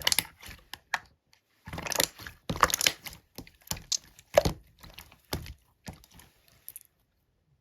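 Slime being squeezed and worked by hand, giving an irregular run of sticky clicks, pops and crackles that stops about seven seconds in.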